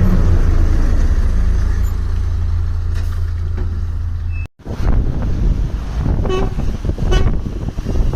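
Heavy Mercedes-Benz truck diesel engines. First a loud, steady low rumble that cuts off abruptly, then another truck running with two short horn toots about a second apart near the end.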